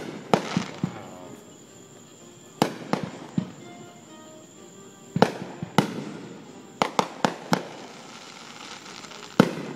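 Aerial fireworks bursting overhead: about a dozen sharp bangs at irregular spacing, several followed by a short rumbling tail, with a quick run of four about seven seconds in.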